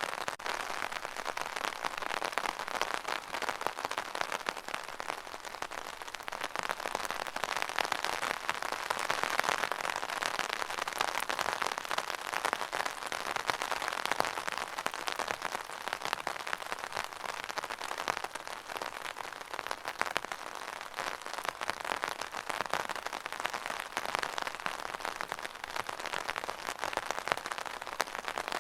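Steady rain falling on a surface: a dense haze of drop ticks that swells and eases slowly.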